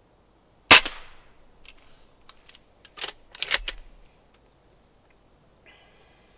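A B3 .177 underlever spring-piston air rifle fires once with a sharp crack about three-quarters of a second in. It is followed by a string of metallic clicks and clacks as the underlever is pulled down to cock the spring, loudest around three seconds in. Near the end there is a faint short scrape.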